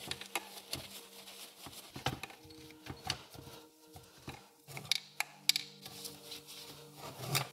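Scattered light clicks and knocks of small metal compressor parts and tools being handled on a workbench, with a cloth wiping between them.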